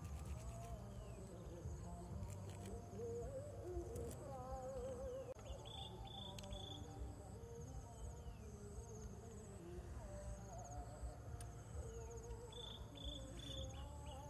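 Insects chirping in a fast, evenly repeating high-pitched pattern, with faint wavering animal calls now and then and a low steady rumble underneath.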